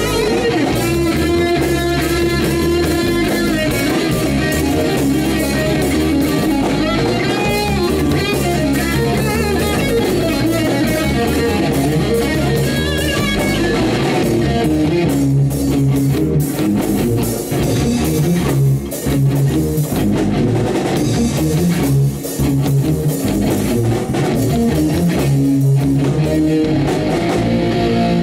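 Rock band rehearsal: a Stratocaster-style electric guitar plays over a drum kit. For about the first half the guitar's notes bend and waver; after that the playing turns choppier, with short stops.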